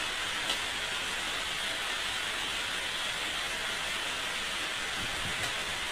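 Steady hiss, with two faint clicks about half a second in and near the end.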